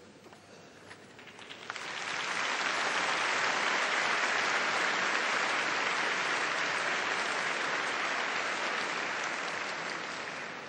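Large banquet audience applauding. A few scattered claps swell about two seconds in into steady, full applause, which begins to fade near the end.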